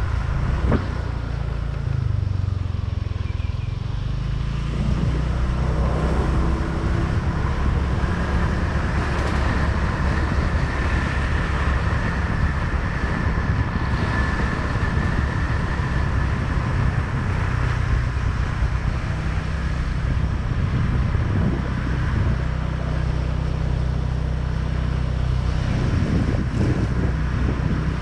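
Motorbike engine running steadily while riding, with wind rushing over the microphone. The engine speed shifts a few seconds in, then holds.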